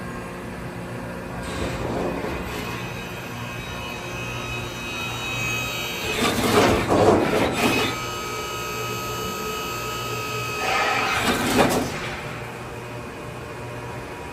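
Brother Speedio R650X1 CNC drilling and tapping center running, with a steady hum and whine of its motors. Two louder, noisier bursts come through, about six seconds in and again about eleven seconds in.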